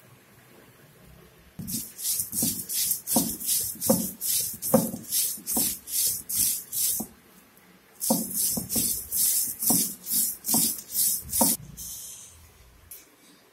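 Stone roller of a traditional flat grinding stone (ammi) worked back and forth over grated coconut, giving regular rasping grinding strokes about two to three a second. The strokes come in two runs with a brief pause between them, and stop shortly before the end.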